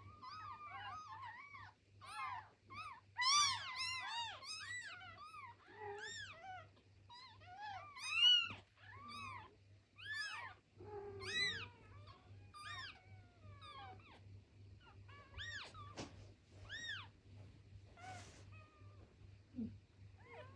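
Two-day-old newborn kittens mewing: many short, high-pitched cries that rise and fall, overlapping one another, loudest in bursts about three and eight seconds in. A steady low hum runs underneath.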